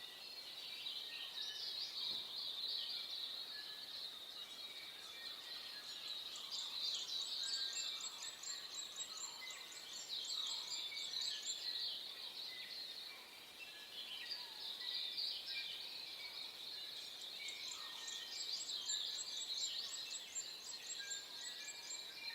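Dawn chorus of many small birds chirping and singing together without pause. Two long runs of fast, repeated high-pitched notes rise above the chorus, one from about six seconds in and another from about seventeen seconds in.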